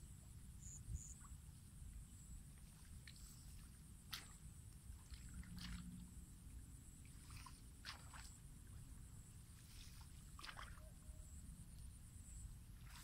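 Near silence: faint open-air ambience with a low rumble, a steady high-pitched whine and a few scattered faint clicks and ticks.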